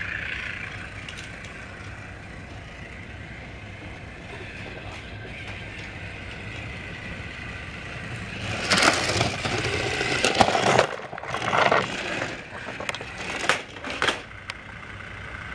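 The whine of a battery-powered toy train's motor and gears, fading slowly. From about halfway through come loud bursts of clattering and scraping.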